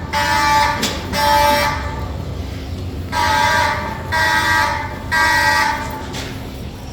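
Fire alarm horns sounding in the three-blast evacuation pattern: two blasts, a pause of over a second, then three more evenly spaced blasts. A steady low rumble runs underneath.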